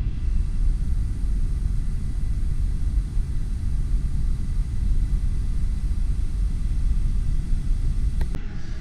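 Steady low rumbling noise with no speech, with a faint high whine above it and a click near the end.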